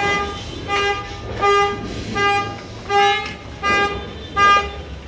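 A horn sounding short toots over and over at an even rhythm, about one every three-quarters of a second, each on the same steady pitch.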